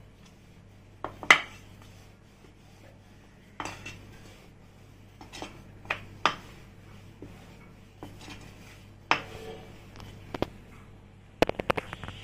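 Rolling pin knocking and clacking against a rolling board as dough is rolled out: separate sharp knocks every second or two, with a quick run of clicks near the end.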